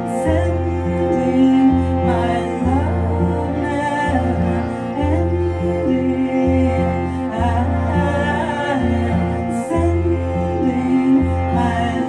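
Cello music: a bowed melody moving over a low bass line whose notes change about once a second.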